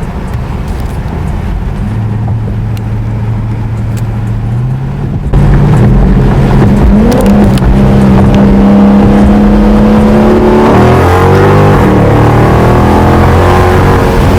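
Dodge Charger Scat Pack's 6.4-litre 392 HEMI V8 with a muffler delete, heard from inside the cabin with the windows down. It cruises steadily, then about five seconds in goes to full throttle and gets much louder, the pitch rising. The pitch drops near two-thirds of the way through as it shifts gear, then climbs again.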